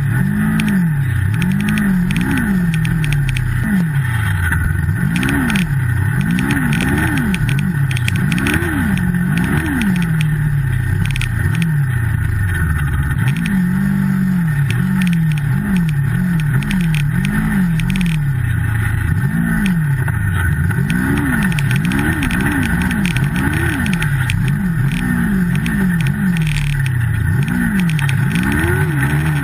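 Turbocharged Yamaha snowmobile engine revving up and falling back over and over as the sled is ridden through deep powder, with a steady higher whine underneath.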